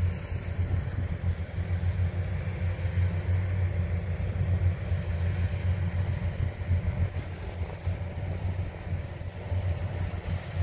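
Kubota DC70 rice combine harvester's diesel engine running under load while it cuts and threshes rice, a steady low drone.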